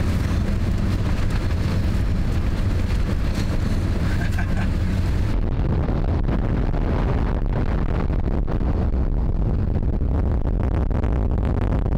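Strong gale-force wind buffeting the microphone: a steady low rumble with hiss above it. About five seconds in the hiss drops away and the rumble carries on.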